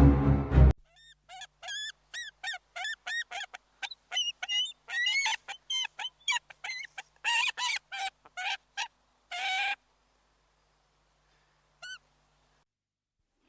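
A goose honking over and over in a run of short calls for about nine seconds, with one last honk a couple of seconds later. Music cuts off just before the honking starts.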